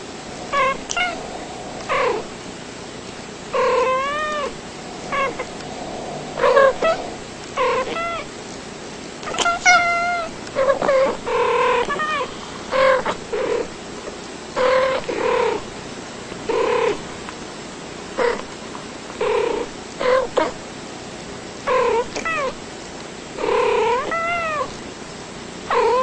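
Two domestic cats trading short chirping meows back and forth, roughly one call a second with brief pauses; many calls rise and fall in pitch.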